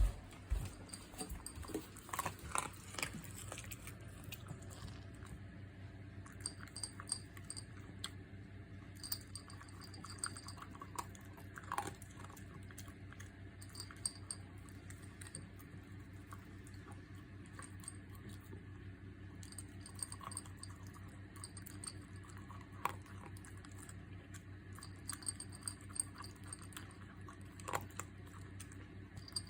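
A Papillon-Corgi mix dog chewing its food, with irregular crisp clicks and crunches from its mouth. A steady low hum runs underneath.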